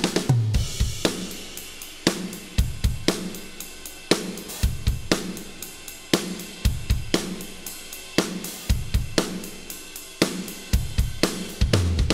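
Acoustic drum kit played as a steady rock groove: kick and snare with hi-hat and cymbal wash over them. At the start and again near the end there is a fill on the low, ringing drums. The kit is a Yamaha Stage Custom Birch with a brass snare and Istanbul Agop cymbals.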